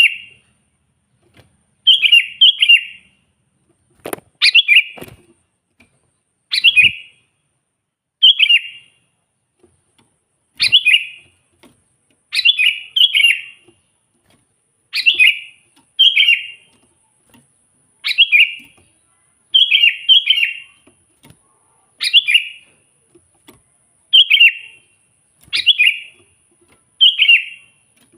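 Sooty-headed bulbul (kutilang) singing short, bright, bubbly phrases, often in quick pairs, repeated about every one and a half to two seconds.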